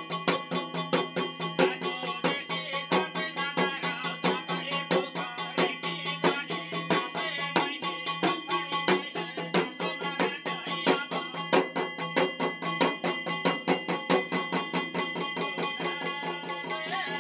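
Jhakri ritual drumming: a drum beaten in a steady fast rhythm of about four to five strokes a second, with a continuous metallic ringing over it.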